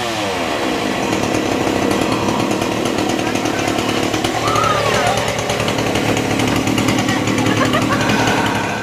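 Chainsaw running steadily at a high, even speed.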